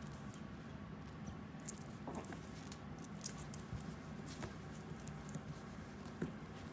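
A puppy's claws pattering and scratching on a wooden floor and a fabric sheet as it scrambles and pounces after a cat-teaser toy, an irregular scatter of light clicks and rustles.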